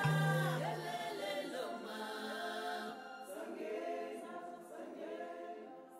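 Background music of several voices singing together, a cappella choir style, fading out toward the end.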